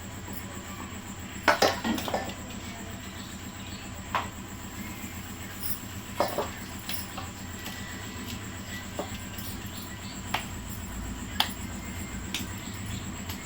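Scattered clinks and knocks of kitchen utensils against dishes and pans, a handful of separate sharp strikes with the loudest about a second and a half in, over a steady low hum.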